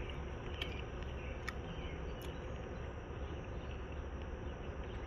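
Steady outdoor insect drone, a thin high hum over a low rumble, with a few faint clicks in the first half from a cherry tomato being chewed.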